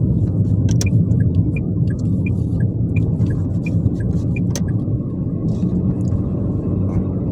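Steady low rumble of a car driving, heard inside the cabin, with a quick regular ticking of about three clicks a second over it.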